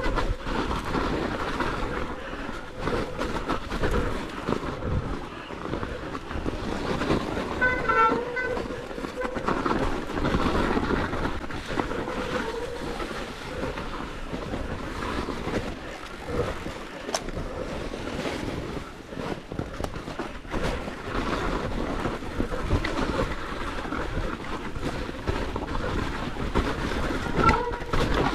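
Electric mountain bike riding over snow: tyres crunching and the bike rattling and knocking in a continuous noisy rumble, with a short high squeal about eight seconds in.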